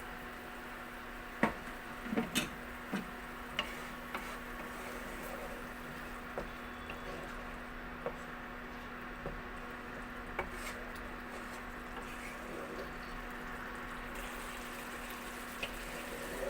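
Hilsa pieces simmering in a pan of mustard and poppy-seed gravy: a steady hiss with a faint hum, and a few light pops and clicks, most of them in the first few seconds.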